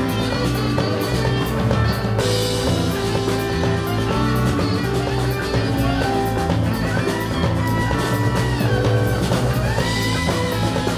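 Live band with horns, electric guitar, keyboard, bass guitar and drum kit playing an instrumental tune; in the second half a high lead line slides up and down in pitch.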